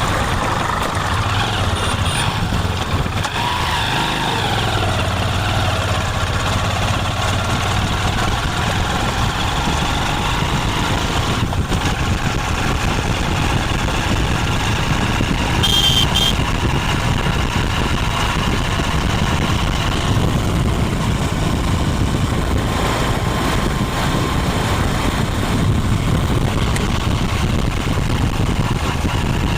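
Motorcycle engine running steadily at idle, its pitch sinking over the first few seconds as it settles. A short high tone sounds about halfway through.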